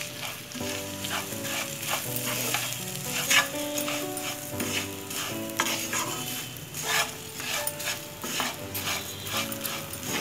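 A spatula stirring and tossing roasted vermicelli with vegetables in a frying pan: dry scraping strokes, roughly two a second, over a light sizzle of frying.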